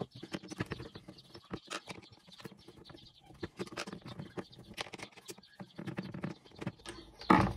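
Phillips screwdriver backing small screws out of a plastic dash fascia: a quick, irregular run of small clicks and ticks from the screwdriver and the plastic parts. A louder knock comes near the end.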